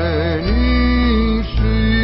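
The song's closing music: steady bass notes under guitar, with a wavering held melody note in the first half second.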